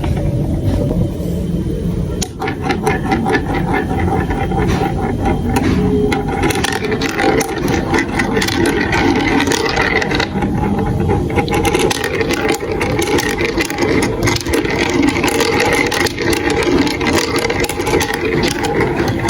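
Marbles rolling and clattering through a plastic building-block marble run: a steady rolling rumble packed with many small clicks and rattles.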